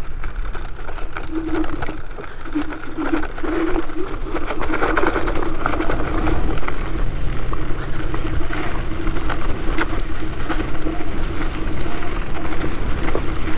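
Electric moped under way: a steady motor whine that drops out and comes back several times, over wind rumbling on the microphone.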